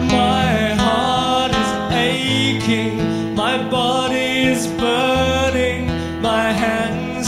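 Live performance of a slow song: acoustic guitar over held keyboard chords and a bass line, with a melody line gliding between notes and no words sung.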